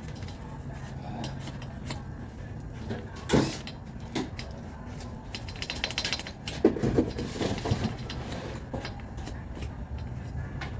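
Tools and metal parts being handled: a sharp click about three seconds in, a brief spell of rapid scraping ticks near the middle, then a run of knocks and clatter.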